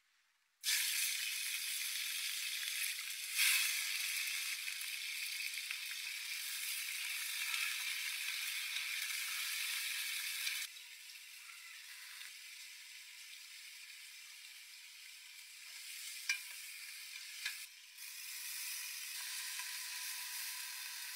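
Steady hiss with no low end, which drops abruptly in level about halfway through and comes back up near the end. Two short, sharp clicks come about a second apart a little after the drop.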